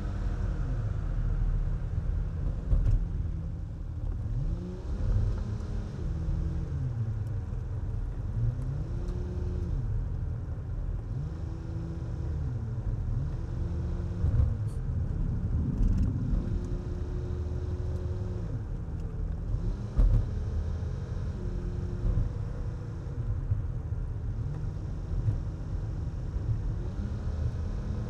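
Car engine and road rumble while driving, the engine note gliding up, holding and falling back again and again as the car speeds up and slows. A few sharp knocks cut through now and then.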